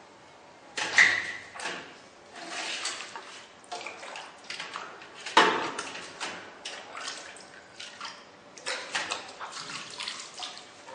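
Water splashing and sloshing with irregular metal clattering and knocks as popsicle molds are handled in water. The loudest knocks come about a second in and about five seconds in.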